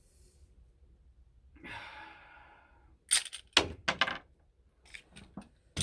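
A breath, then a series of sharp metallic clacks and clicks from a Ruger SR9C 9 mm pistol being handled and cleared after a round failed to fire. The loudest clack comes at the very end. The misfire is put down to light primer strikes.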